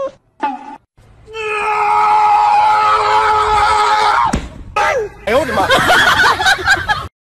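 A long, loud scream held on one pitch for about three seconds, then a run of shorter cries that waver up and down before cutting off suddenly.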